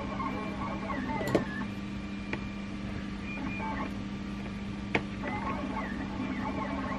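A steady motor hum with a higher whine that sweeps up and down in quick repeated arcs, broken by a few sharp clicks: one about a second in, a fainter one near two and a half seconds and one near five seconds.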